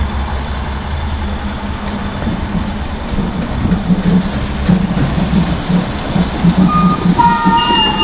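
Concrete mixer truck's diesel engine running steadily during a pour. About seven seconds in, a reversing alarm starts beeping about once a second.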